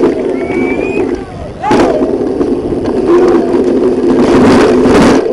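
A downhill mountain bike with a rigid frame running fast down a paved street, heard through a cheap onboard camera: a steady rush of wind and road noise with knocks and rattling from the bike over bumps, heaviest near the end. A spectator's shout is heard about two seconds in.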